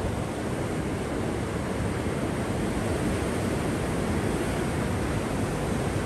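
Rough winter sea surging and breaking against a rocky tetrapod breakwater: a steady rush of surf with no let-up.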